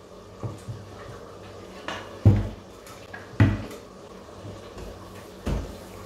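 Plastic blender jar and its parts knocking and clunking as they are handled over a steel sink and set down on the counter: a light knock early on, two loud thumps about two and a quarter and three and a half seconds in, and another near the end.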